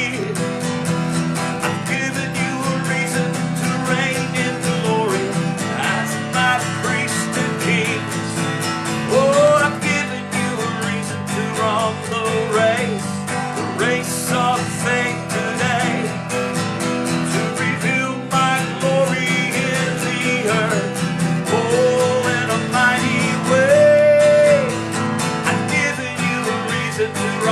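Slow worship music on strummed acoustic guitar, with a gliding melody line above the chords and no sung words.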